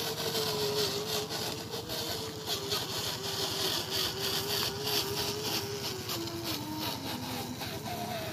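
A homemade RC tractor's small electric motor and gearbox whining with a rapid gear rattle as it drags a disc plough through dirt. The whine sinks slowly in pitch as the motor labours under the load, then rises again near the end.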